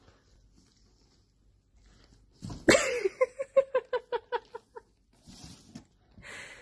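An animal's rapid run of about ten short, high-pitched calls, about five a second, starting suddenly about two and a half seconds in and stopping just under two seconds later.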